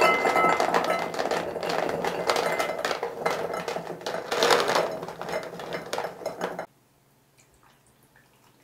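Maltesers chocolate malt balls pouring out of a plastic tub into a glass bowl: a dense, continuous clatter of many small balls hitting the glass and each other, with a little ringing from the bowl at first. It cuts off suddenly about two seconds before the end, leaving near quiet.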